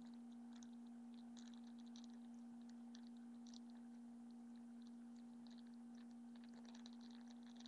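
Near silence: a steady low hum with faint, scattered crinkling as a baby handles a soft fabric book.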